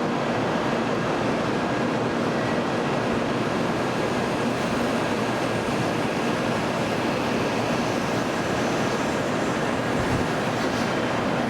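N700-series Shinkansen train departing, a steady even noise as the cars roll along the platform.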